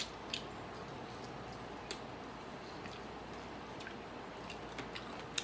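Close-up eating sounds of grilled chicken eaten by hand: a handful of short wet mouth clicks and smacks while chewing, scattered over faint steady room hiss.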